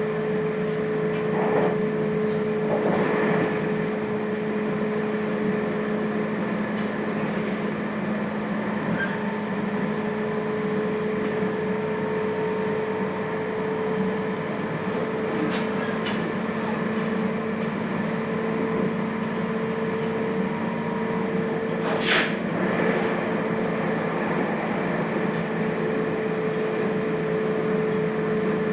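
Interior running sound of a JR Hokkaido 721 series electric train with thyristor phase control, heard inside the motor car: a steady electrical hum over constant wheel-and-rail rumble at steady speed. A few light knocks in the first few seconds and one sharp knock about three-quarters of the way through.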